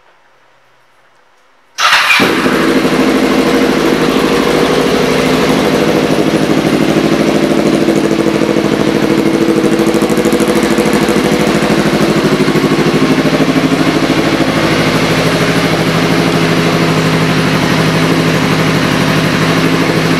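A 2006 Kawasaki Ninja 500R's parallel-twin engine starts suddenly about two seconds in, then idles steadily.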